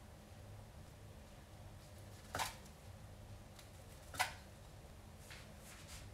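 A knife cutting twice through a nori-wrapped sushi roll, each cut a short sharp crunch and knock on the cutting board, about two seconds apart, over a faint low room hum.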